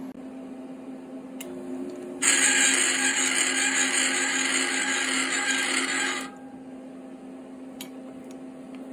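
Harbor Freight Central Machinery 3-in-1 mill-lathe running with a steady hum, and for about four seconds in the middle a loud, even hiss during a thread-cutting pass on brass stock, cutting off abruptly.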